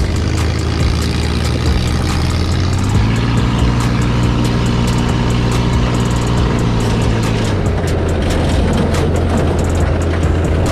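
Off-road buggy engine running while driving on a dirt track. Its pitch steps up about three seconds in and drops back near eight seconds, with constant rattling over it.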